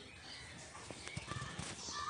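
Small spoon clicking and scraping against a miniature metal pitha pan as the tiny pitha cakes are lifted out, a few light taps about a second in. A crow caws in the background near the end.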